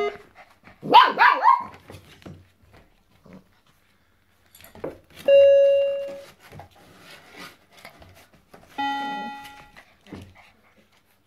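Six-week-old puppies at a toy electronic keyboard: about a second in, a puppy gives a short burst of high yips and barks. Later the keyboard sounds single held notes as the puppies press its keys, one about halfway through and a lower one near the end, among light taps and clicks of paws on the plastic.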